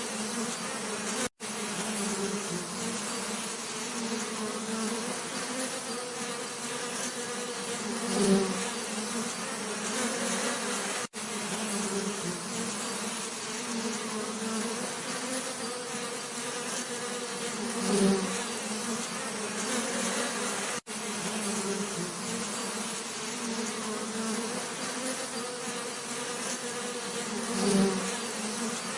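Bees buzzing in a steady, continuous hum, with a louder swell about every ten seconds. A brief dropout recurs at the same interval, where the recording loops.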